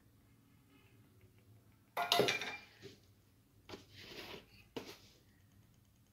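A stainless steel bowl clattering as it is set down on the counter about two seconds in, ringing briefly. Softer kitchen handling noise and a single sharp click follow.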